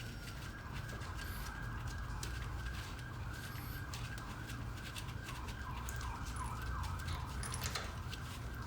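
Faint emergency-vehicle siren: a long wail that changes to a fast up-and-down yelp in the middle, then goes back to wailing. There is a steady low hum underneath and a few light clicks.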